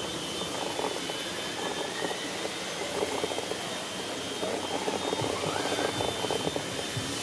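A six-wheeled RC trial truck crawling up concrete steps: its small electric motor and gears whine, with tyres and grit crackling and ticking on the steps. The whine rises briefly a little past the middle.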